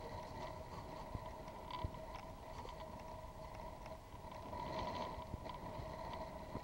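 A boat's motor running steadily with an even hum, over a low rumble of water against the hull, with a few small knocks.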